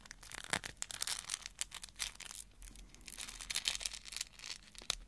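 A gold-coloured bead chain and its pirate medallion handled close to the microphone: the beads rattle and click against each other and the fingers in a dense, crackly run of small clicks.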